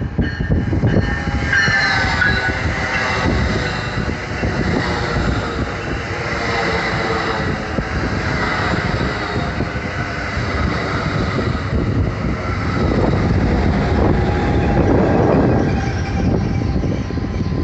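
Commuter train running on the rails: a steady rumble with high-pitched, wavering squeal tones over it, strongest a second or two in.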